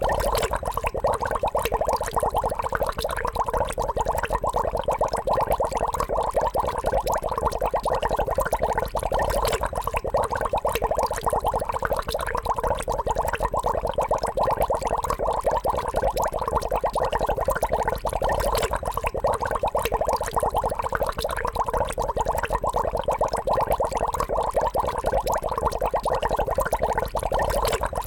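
Water bubbling steadily: a dense, unbroken stream of small rapid bubble pops with a gurgling, mid-pitched sound.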